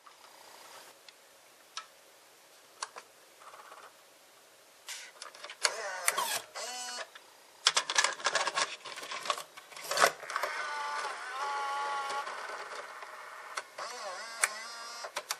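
Sony EV-C8u Video8 cassette deck's tape mechanism: a small motor whirs with a gliding pitch, then clicks and clatter as a cassette is handled and the compartment lid is pushed shut with a sharp click. After the click the loading motor whirs steadily for a few seconds as the tape is threaded.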